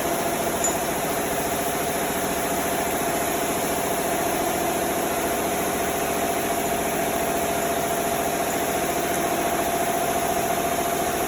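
Dual-action (DA) orbital sander running steadily on primer surfacer, a continuous machine hum with a fixed tone and an even hiss.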